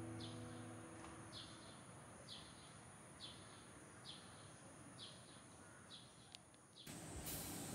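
A bird chirping faintly: a short falling chirp repeated about once a second. The last piano notes fade out in the first second or so.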